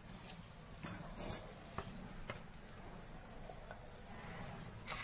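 Low background hum with a few faint, scattered clicks and light knocks from a plate being handled.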